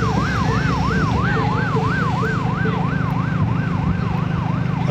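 Electronic siren in a fast yelp, its pitch sweeping up and down about four times a second, over a steady vehicle engine hum.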